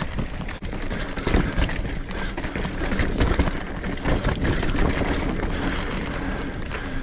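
Ragley Big Al hardtail mountain bike rolling fast down a rocky dirt trail: tyres crunching over dirt and stones, with the frame, chain and parts rattling over the bumps, and wind buffeting the microphone.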